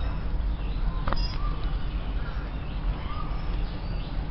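A steady low rumble with a bird calling faintly a few times, short rising-and-falling notes about a second apart, and a single sharp click about a second in.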